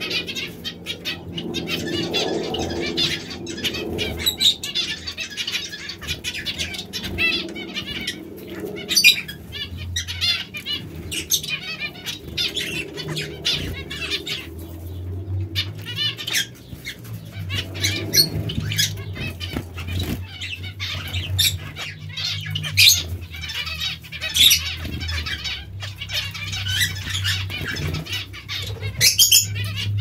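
Aviary finches, including zebra finches, calling with many short chirps amid fluttering wings, over a low steady hum.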